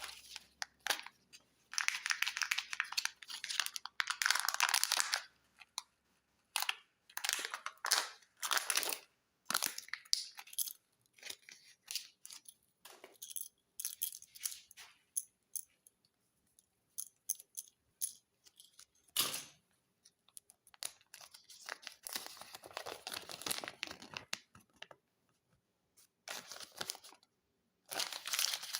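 Kinder Joy egg wrappers being torn open and crinkled, in repeated bursts of tearing and rustling separated by short pauses, with small clicks in between.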